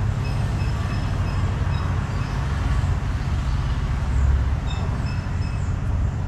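A steady low mechanical rumble, with faint short high-pitched chirps coming and going over it.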